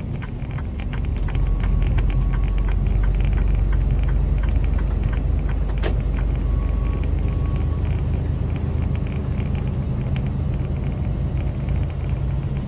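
Cab of a Mercedes Actros lorry on the move: the diesel engine runs steadily with a low hum, and the tyres add noise on the wet road. Two pairs of short faint beeps come about a second in and again about six seconds in, and there is a single sharp click just before the middle.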